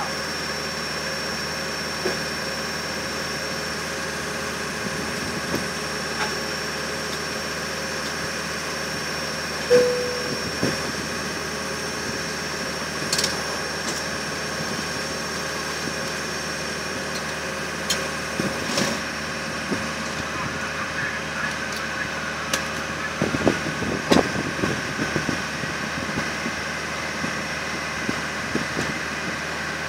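Steady cabin hum inside an airliner on the ground, with a thin steady high whine over it. A sharp knock about ten seconds in, then scattered clicks and knocks and muffled voices in the second half.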